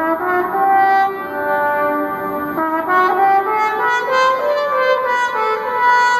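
Trumpet played solo: a slow melody of held notes that step up and down in pitch.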